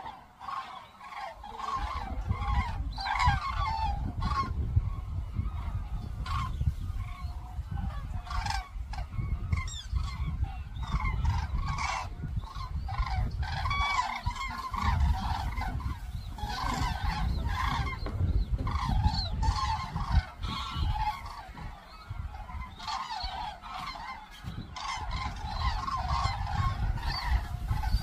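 A flock of common cranes calling in flight: many overlapping trumpeting calls at once, over a low rumbling noise.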